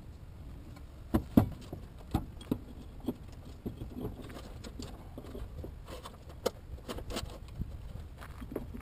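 Metal parts and hand tools clinking and knocking during front suspension work: a few sharp knocks between one and two and a half seconds in, then scattered lighter clicks and rattles.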